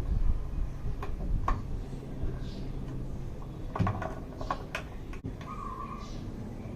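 Several light clicks and knocks over a low rumble, clustered about four seconds in, with a short high tone near the end.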